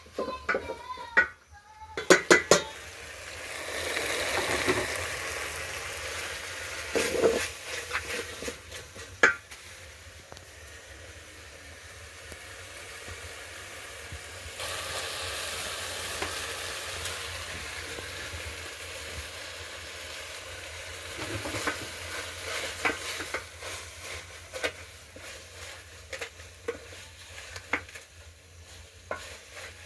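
Food sizzling in a cooking pot while a utensil stirs it, with repeated sharp knocks and scrapes against the pot. The sizzling swells louder twice.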